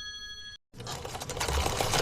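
A ringing tone fades out, a brief gap of silence follows, then a rapid mechanical clatter with a steady low hum starts up and grows louder.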